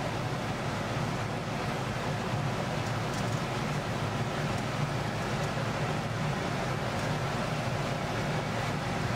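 Steady roar of a glassblowing workshop's gas-fired glory hole and furnaces, with a few faint clicks over it.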